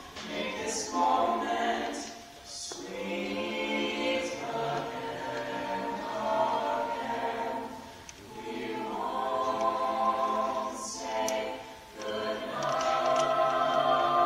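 Small mixed choir singing unaccompanied in close harmony, with brief pauses between phrases and crisp 's' consonants sung together.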